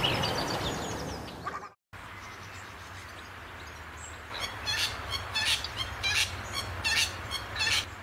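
Western wattlebird giving a run of harsh, rasping calls, about two a second, starting about four seconds in, over a low steady hum.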